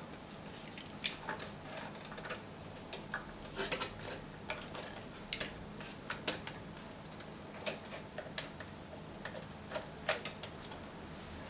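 Irregular small clicks and taps of plastic and metal parts being handled as a boombox's cassette deck mechanism is fitted back into its case.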